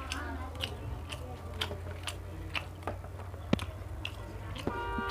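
A person chewing a mouthful of food close to the microphone: irregular sharp, wet mouth clicks over a steady low hum, one click much louder than the rest partway through.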